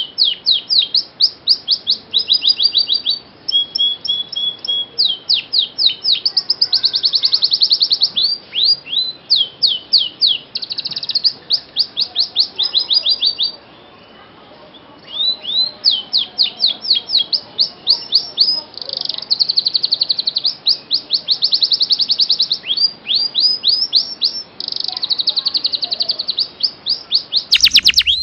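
Domestic canary singing: fast series of repeated chirps and rolling trills, the phrases changing every second or two, with a short break about halfway through.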